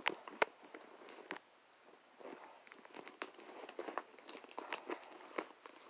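Handling noise from a leather Fossil satchel being turned over: scattered clicks and taps from its brass hardware and zip, with rustling of the leather and lining. The sharpest clicks come near the start, then a short lull before more rustling and clicking.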